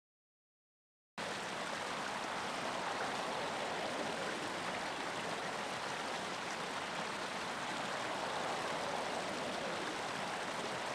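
Steady rush of a flowing river or stream, a water ambience sound effect that cuts in suddenly about a second in and runs on evenly.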